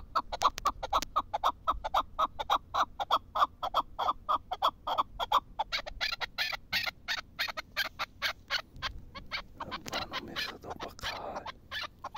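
Chukar partridge calling: a fast, even run of short chuck notes, about five a second, the notes turning sharper and higher about halfway through.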